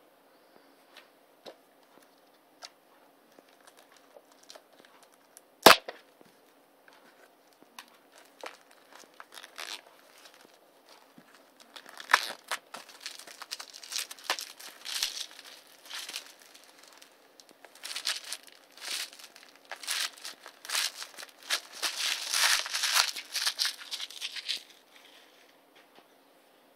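Clear plastic shrink-wrap being picked at, torn and peeled off a DVD case, crinkling and crackling heavily through the second half. A single sharp click about six seconds in.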